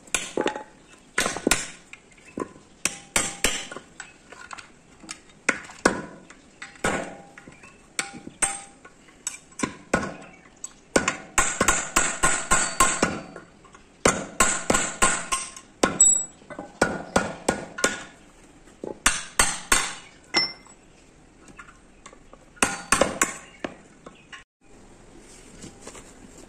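Hammer blows on a steel truck brake shoe, knocking at the old riveted lining to remove it. Sharp metallic strikes come in bursts, one of them a quick run of blows, and stop shortly before the end.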